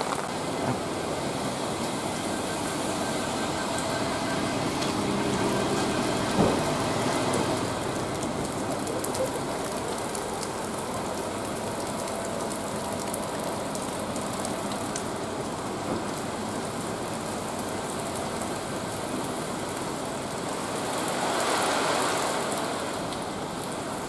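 Steady rain with the hiss of traffic on a wet road; a vehicle swishes past on the wet tarmac near the end.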